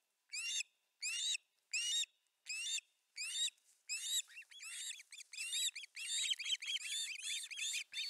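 Osprey calling at the nest: a series of high, whistled chirps, about one every 0.7 s at first. About halfway through they speed up into a rapid, overlapping run, the excited calling heard as the male brings prey to the nest.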